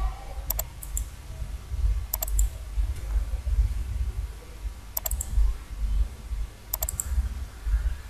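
Computer mouse buttons clicking, in four pairs of quick clicks a couple of seconds apart, while wires are placed in a circuit-drawing program. A low rumble of background noise runs underneath.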